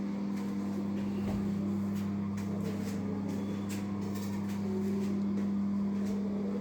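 A steady low hum, like a motor or electrical drone, with faint scattered taps and knocks over it.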